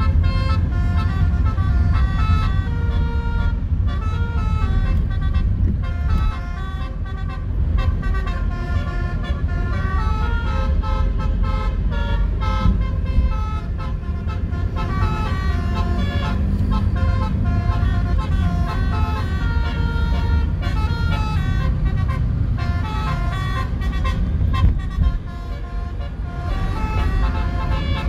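Indonesian bus's multi-tone 'telolet' basuri horn playing a tune of stepped notes over and over, over the low rumble of road traffic.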